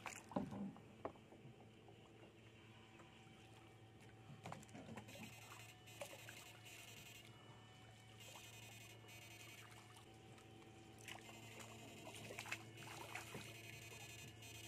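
Quiet: faint splashes and trickles of water as an electrofishing pole and scoop net are worked through shallow canal water, over a faint steady hum.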